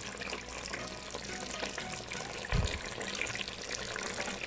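Thickened chicken curry sauce sizzling and bubbling in the pan, with a dull low thump about two and a half seconds in.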